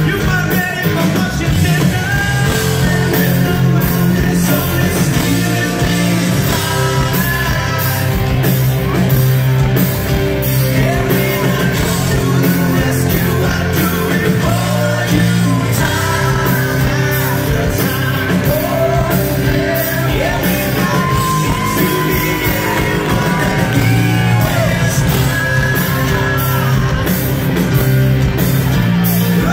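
Live rock band playing a song through a PA system, with a male lead vocal sung over electric guitars, keyboard, bass and drums.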